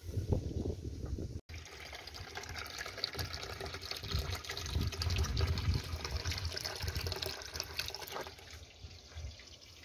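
Water running steadily, a continuous splashing hiss that fades away about eight seconds in.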